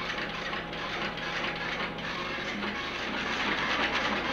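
Rapid mechanical clicking and clatter of an electric typewriter being typed on, growing a little louder near the end.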